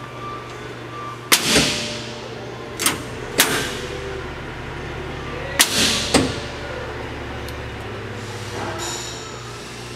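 Five sharp bangs in the first six seconds, each ringing on in a reverberant room, over a steady low hum.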